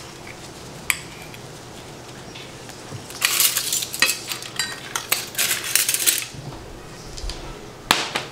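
Cutlery and dishes clinking and clattering on a table as they are handled: one clink about a second in, a run of rattling from about three to six seconds, and a sharp clink near the end.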